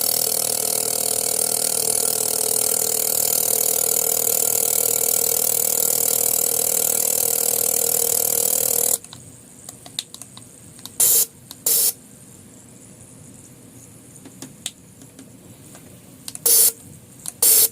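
Fuel injector cleaning and testing machine running: a steady whine with the hiss of injectors spraying cleaner, which cuts off after about nine seconds. Then four short sprays in two pairs.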